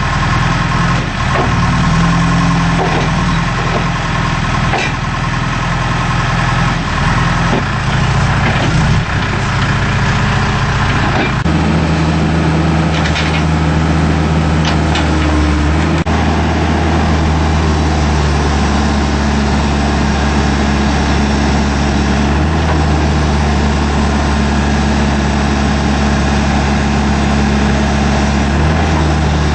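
Diesel engine of a 2007 John Deere 310J backhoe loader running. Its note changes about eleven seconds in and then holds steady, with a few short knocks soon after.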